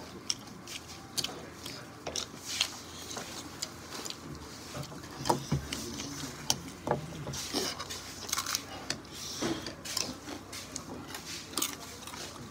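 Eating at a table: irregular light clicks and clinks of a fork and fingers against a plate and bowl, mixed with chewing and mouth sounds.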